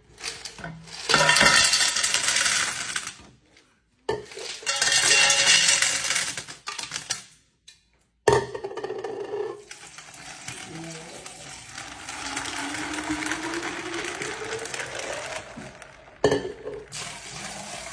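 Ice cubes poured from a pitcher into tall glass vases, clattering loudly in two separate pours. Then iced coffee is poured into a vase over the ice, splashing with a tone that slowly rises as the vase fills, and a second liquid pour begins near the end.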